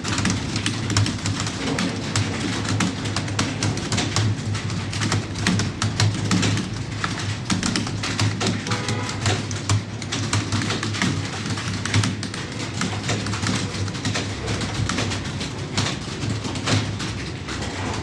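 Computer keyboards being typed on fast by several people at once, a continuous clatter of keystrokes over a steady low hum.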